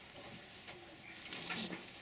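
Faint voices in the background with a few soft clicks.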